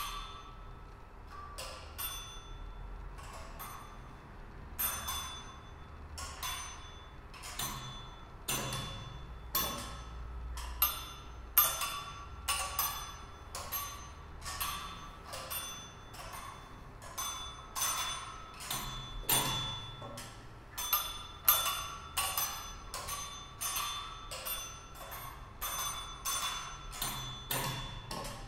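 An irregular series of sharp struck tones with short, bright, bell-like ringing, like mallet percussion, about one or two strikes a second and growing denser, with a few louder hits, over a faint steady hum.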